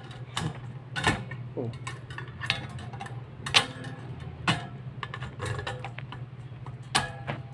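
Irregular metallic clicks and clinks of stainless-steel dish rack parts being handled and fitted together, the wire tray and small screws tapping against the chrome frame. A few louder clinks ring briefly, one about three and a half seconds in and another near the end.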